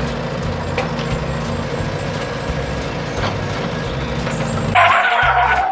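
Truck engine sound running steadily, then a louder, brighter burst starting near the end.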